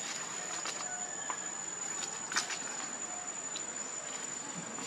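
Insects droning steadily at one high pitch over a background hiss, with a few faint clicks, the clearest about two and a half seconds in.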